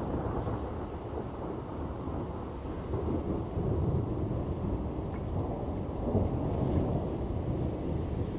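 Thunder rolling in a long, continuous low rumble that swells twice, with rain falling.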